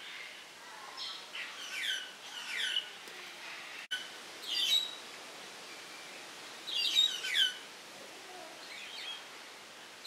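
Small birds chirping: short, high calls that fall sharply in pitch, in clusters of two or three every couple of seconds, the loudest about seven seconds in.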